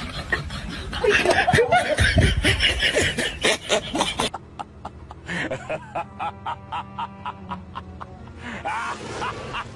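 Someone laughing over a busy mix of sound, which cuts off suddenly after about four seconds and gives way to light background music with an even beat of about three notes a second.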